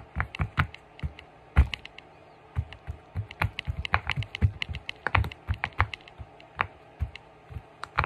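Rainbow silicone pop-it fidget toy having its bubbles pushed in by fingertips: an irregular run of short popping clicks, several a second.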